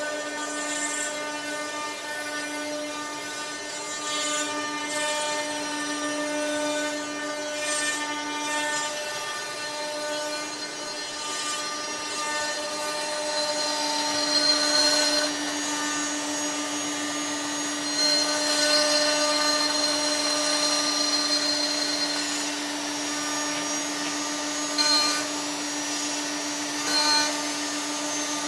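CNC router milling a block of wood: the spindle runs with a steady pitched tone under the rasping of the cutter. The cutting grows louder about halfway through, with a couple of short louder bites near the end.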